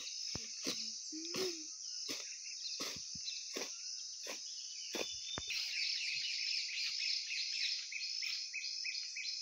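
A hand blade slashing through grass and weeds, one swishing stroke about every 0.7 s, stopping about five and a half seconds in, over a steady high insect drone. From there to the end a run of quick, repeated chirps takes over.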